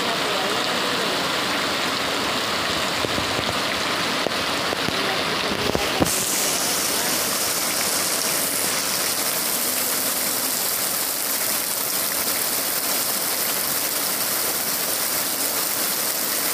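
Heavy rain falling in a steady, dense hiss. About six seconds in the sound turns brighter and hissier.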